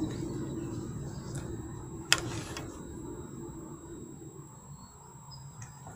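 Outdoor ambience: a low rumble that fades away over the first four seconds, and a single sharp click followed by a brief hiss about two seconds in.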